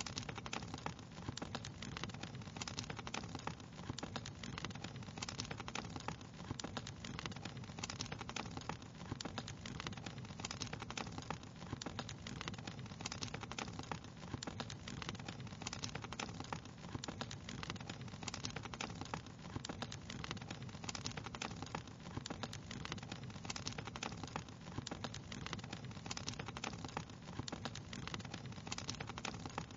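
Fireplace fire crackling steadily, with a dense run of small pops and snaps over an even low rush.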